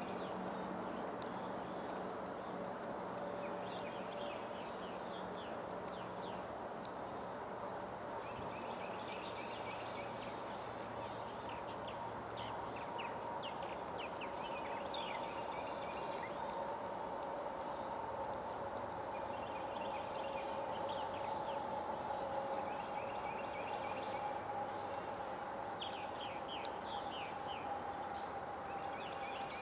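Outdoor insect chorus, a continuous high-pitched pulsing drone like crickets, with short bursts of rapid chirping every few seconds.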